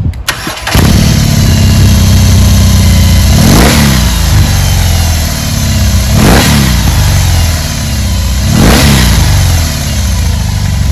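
BMW R18's 1802 cc boxer twin cranking briefly and catching, then idling loudly, blipped three times about every two and a half seconds.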